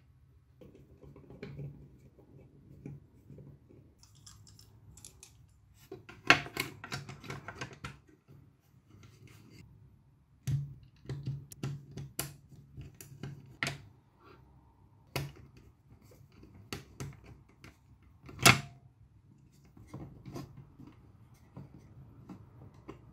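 Handling noise from a toy sewing machine's plastic housing and metal shafts: scattered clicks and knocks as parts are fitted together and a screwdriver works a screw, two of the knocks much louder than the rest.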